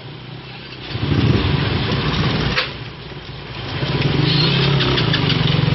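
Vehicle engines passing close by. One engine comes up about a second in and fades near the middle, then another runs steadily and grows louder from about four seconds, with a single sharp click between them.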